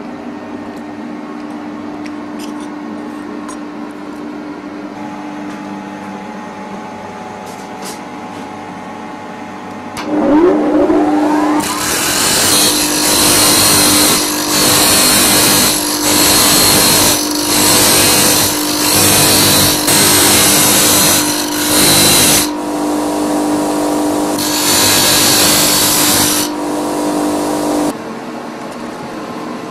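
Steady low hum at first. About a third of the way in, a bench grinder's motor spins up with a rising whine and then runs steadily. Metal is pressed to the wheel in about eight passes of roughly a second each, each giving a loud grinding hiss, until the sound cuts off abruptly near the end.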